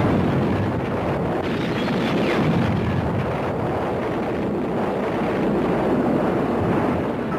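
Dense, steady roar of battle sound effects: rumbling fire and bombardment noise, with no single distinct blast standing out.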